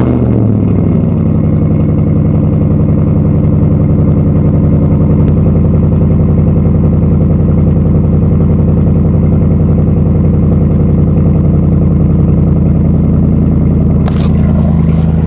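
2013 Dodge Ram 1500's engine, through an aftermarket exhaust, firing on a cold start after sitting for days, then settling into a loud, steady cold idle. It carries the tick that the owner calls the infamous Dodge tick.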